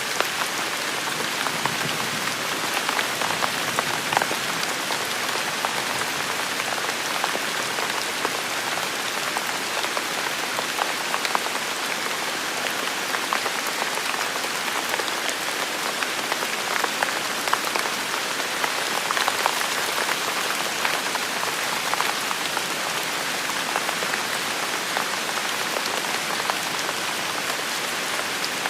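Steady rain: a continuous hiss with many individual drops ticking sharply on nearby surfaces.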